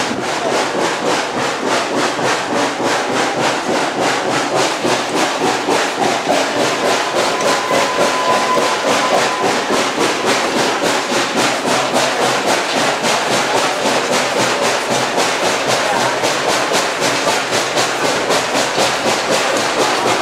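Steam locomotive pulling the train at low speed, its exhaust chuffing in a steady rhythm of about three beats a second, heard from an open car behind it together with the running noise of the cars.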